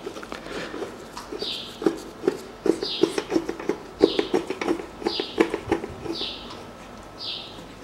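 Gloved hands rubbing and pressing on an air compressor's finned cylinder head, making a busy run of scuffs and light knocks that is thickest in the middle. A bird repeats a short falling call about once a second.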